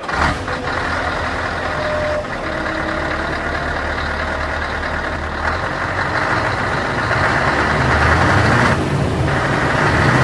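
Heavy truck engine running steadily, with a deep low hum under a dense rumble, growing a little louder in the second half.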